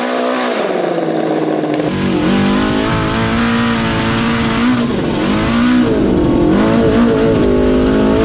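Supercharged Yamaha RX1 snowmobile engine running hard as the car is driven, its pitch holding, rising and dropping several times, with dips around 5 and 6 to 7 seconds in. A rough low rumble joins the engine note about 2 seconds in.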